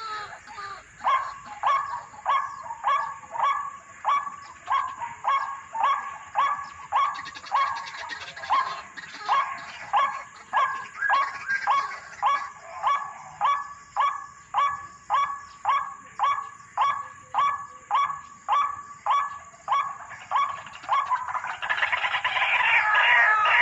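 White-breasted waterhen (ruak-ruak) calling: a short call repeated steadily, about three every two seconds, breaking into a louder, dense jumble of calls near the end.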